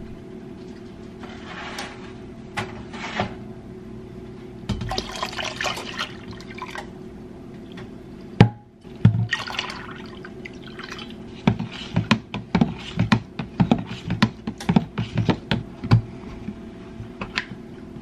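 Brewed tea poured into a plastic pitcher of water, in splashing bursts. A sudden click comes about eight seconds in, followed by a quick run of short knocks and taps.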